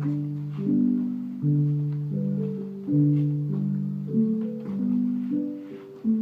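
Slow instrumental music: a keyboard playing sustained chords that change every second or so.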